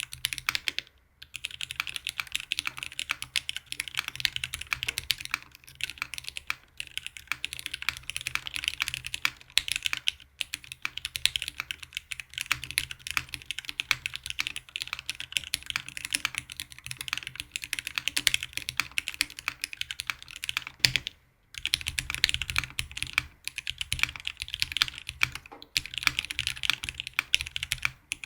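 Fast continuous typing on a custom 65% mechanical keyboard with lubed Cherry Hyperglide Black linear switches, GMK Muted keycaps and a polycarbonate plate: a dense run of keystrokes, broken by short pauses a few times.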